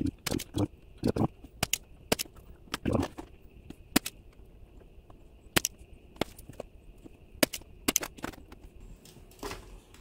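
Sharp clicks and snaps, irregular and a second or so apart, from a spring-loaded handheld desoldering pump being cocked and fired to clear solder from toroid legs on a circuit board. A faint steady high whine runs beneath.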